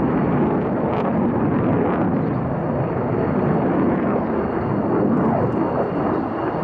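Loud, steady jet noise from an F-4EJ Kai Phantom II's two J79 turbojet engines in flight.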